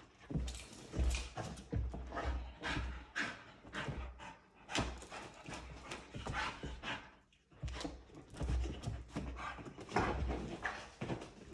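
An excited dog panting and moving about close by, with irregular short scuffling noises.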